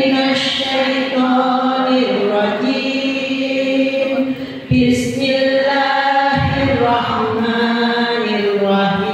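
Women's voices chanting an Islamic devotional song together through a microphone, in long held notes, with a short break for breath about halfway through.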